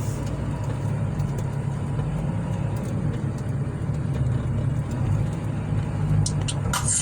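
Steady low rumble of a moving car's engine and tyres on the road, heard from inside the cabin while driving.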